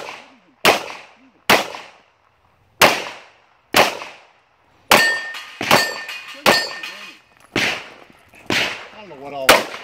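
A handgun fired in a timed action-pistol run: about ten sharp shots, roughly a second apart, with short pauses as the shooter moves between targets. A steel target rings after a hit near the middle.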